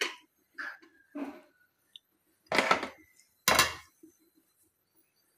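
A metal spoon scraping through cooked millet in a pressure cooker, with a few light clicks, then two loud knocks of the spoon against the metal cooker a little over halfway through.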